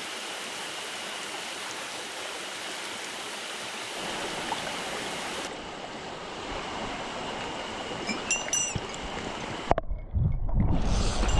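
Mountain stream water rushing steadily. Near the end there is a sharp knock, and music comes in.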